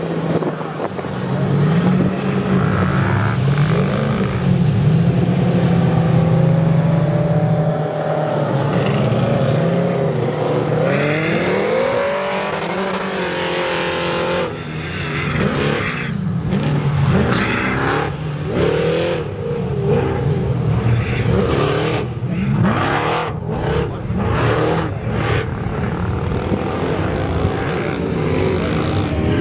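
Engines of several off-road race trucks (ProLite and Thunder Truck classes) racing, revving up and down with the pitch rising and falling again and again as they accelerate and shift.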